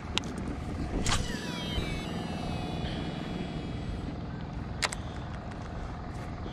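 A cast with a Shimano Curado DC baitcasting reel: a swish about a second in, then the spool's electronic brake whine, falling in pitch and fading over about three seconds. A sharp click comes near five seconds, over a steady low rumble.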